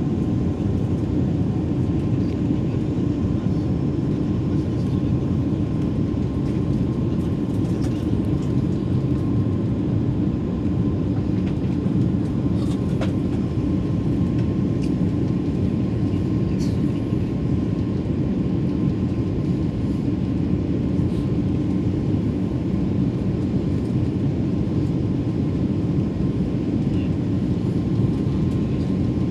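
Steady cabin drone of an Airbus A330-343 in flight, heard from a window seat: a deep, even rush of engine and airflow noise, with a faint steady high whine above it.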